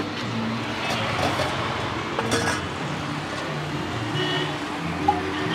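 Street traffic with a motor vehicle engine running steadily, a few light metal clinks of steel tumblers, and a short high beep about four seconds in.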